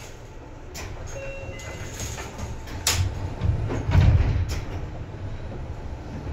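Seibu 2000 series electric train running, heard on board: a low rumble from the running gear that builds and swells, with several sharp clacks, the loudest about three seconds in.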